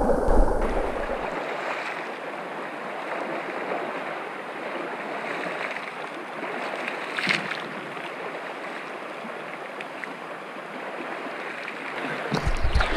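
A shallow river's current rushes steadily while a person stands in it splashing water up by hand, with one sharper splash about seven seconds in. Near the end a low rumble of the camera being picked up comes in.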